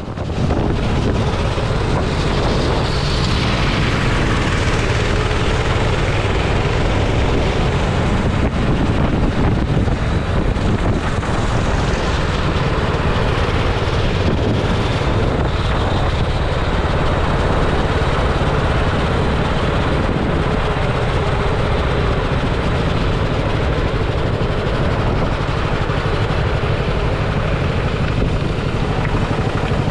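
Go-kart engine running steadily at low speed on a slow cool-down lap after the chequered flag.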